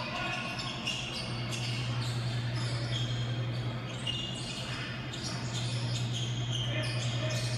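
Televised basketball game sound heard through a TV's speaker: sneakers squeaking on the hardwood court several times and the ball bouncing, over arena noise. A steady low hum runs underneath.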